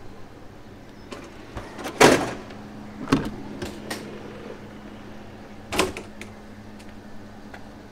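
Clunks and knocks of a VR Pendolino train's passenger door and someone stepping aboard into the vestibule: one loud clunk about two seconds in, a few lighter knocks, and another thump near six seconds. A low steady hum sets in after the first clunk.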